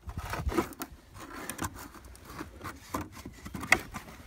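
Handling noise: a camera rubbing and scraping against clothing in irregular rustles, with a sharper scrape just before the end.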